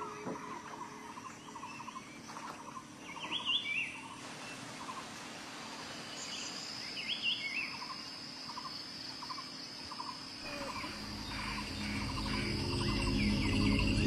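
Evening insect and bird chorus: a short chirp repeating about twice a second, a few brief bird calls, and a steady high insect drone from about six seconds in. Background music swells in over the last few seconds.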